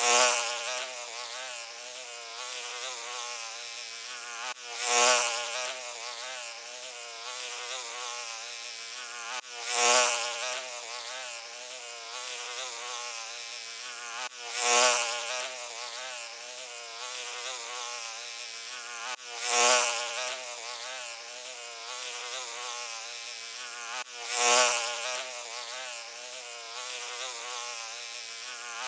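Fly buzzing, its pitch wavering constantly. The buzz swells louder about every five seconds, repeating evenly like a loop.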